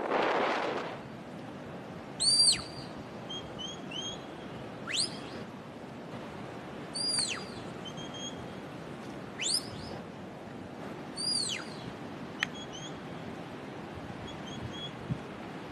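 Repeated high whistles, each sweeping quickly downward, about one every two seconds, with faint short bird chirps between.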